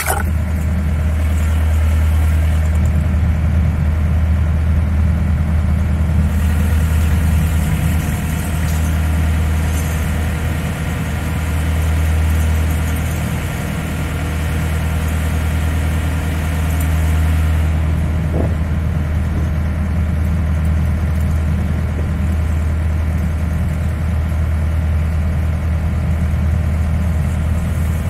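Narrowboat's diesel engine running steadily under way, a constant low thrum with steady overtones. It sounds hissier and fuller from about three to seventeen seconds in, while the boat is under a bridge.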